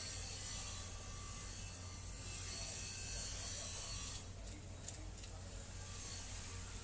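Steady low machine hum with a high hiss, the background drone of the processing hall; it dips briefly about four seconds in, with a single small click near the five-second mark.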